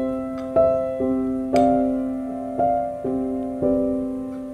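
Background piano music: a slow melody of single struck notes, each fading out, about two a second.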